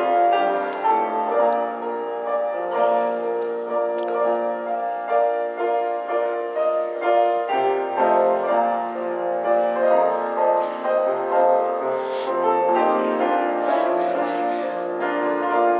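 Slow instrumental piano music, held chords moving from one to the next every second or so.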